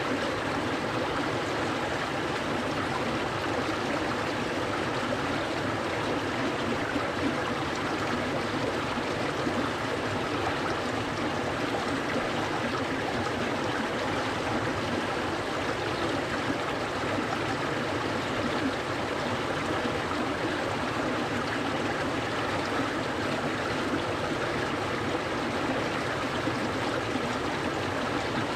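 Clear mountain stream flowing steadily over rocks, a constant rush of running water with a light gurgle.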